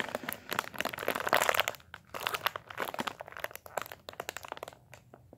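Clear plastic bag crinkling and crackling in irregular bursts as a squishy toy is handled inside it, with short lulls about two seconds in and near the end.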